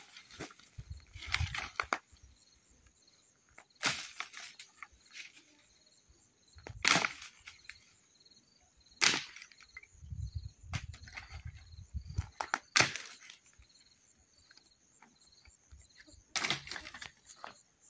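Dry wood cracking and snapping in sharp, separate cracks at irregular intervals, about seven in all, the loudest around the middle. Insects chirp faintly and steadily throughout.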